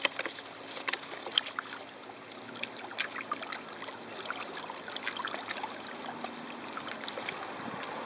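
Small waves lapping and splashing against shoreline rocks, full of small crackles and ticks, over a faint steady hum.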